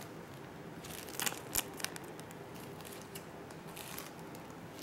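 A thin plastic Ziploc bag crinkling as its corner is torn off by hand to make a small piping opening. There are sharp crackly rustles about a second in and again briefly near the end.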